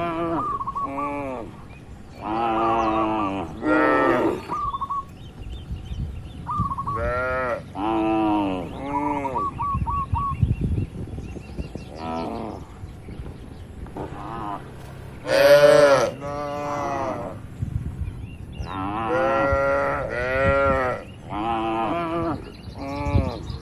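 A herd of cattle mooing: many separate moos follow one another throughout, some overlapping, with the loudest call a little past the middle.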